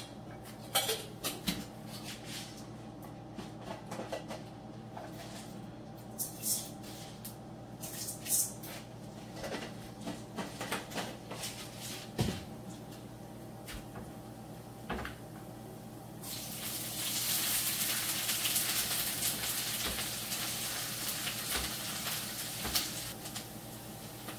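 Cooking sounds: scattered clinks and knocks of containers and utensils being handled, over a steady hum. About two-thirds of the way through, a steady hiss starts abruptly and carries on almost to the end.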